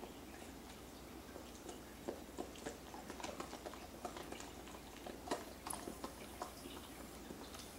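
Shiba Inu gnawing at a hard baked dog biscuit: quiet, irregular clicks and crunches of teeth on the biscuit, busiest through the middle, with one sharper crack a little past the five-second mark.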